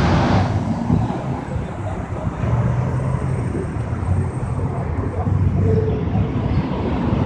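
Kawasaki Vulcan S's 649 cc parallel-twin idling steadily through a modified exhaust whose muffler has been opened up, heard close to the exhaust tip.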